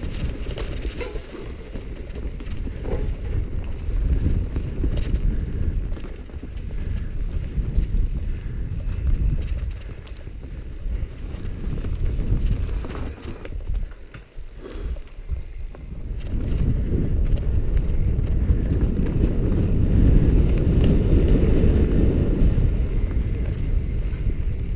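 Mountain bike riding a dirt and rock trail: wind noise on the microphone and tyre rumble, with scattered knocks and rattles as the bike rolls over roots and stones. The rumble gets louder for the last third, over rock.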